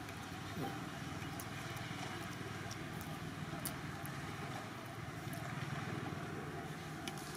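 Steady low outdoor background rumble with a few faint, scattered high ticks.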